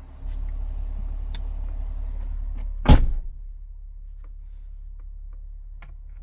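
A car's electric window motor whirs steadily for about two and a half seconds, then a loud thud comes about three seconds in. Afterwards a lower steady hum remains, with a few faint clicks.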